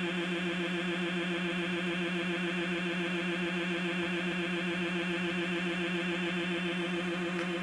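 Circuit-bent electronic sound generator putting out a steady buzzing drone with a fast, even warble, like a sci-fi sound effect. A faint tick comes near the end.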